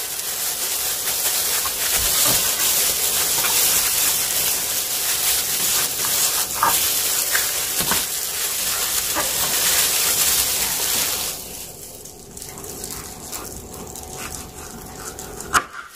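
Food sizzling in a frying pan, a steady hiss that stops abruptly about eleven seconds in.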